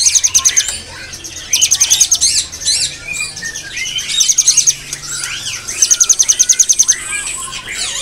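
Many caged songbirds calling and singing at once, with chirps and whistles throughout. A loud, fast, high trill of evenly repeated notes breaks in three or four times.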